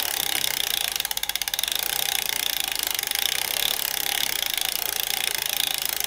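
Bicycle freewheel clicking in a rapid, steady run of ticks as the drivetrain turns.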